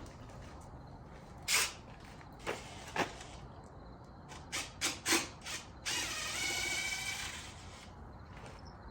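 Metal parts knocking and clinking, about seven sharp knocks over four seconds, then a scrape with a thin squeal lasting about a second and a half, as the backhoe bucket is worked off.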